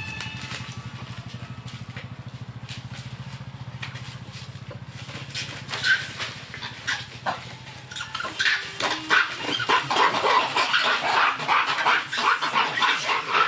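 Monkeys giving short, sharp alarm barks and screeches at a fake snake, a few at first and then many overlapping from about eight seconds in. A low steady hum lies under the first few seconds.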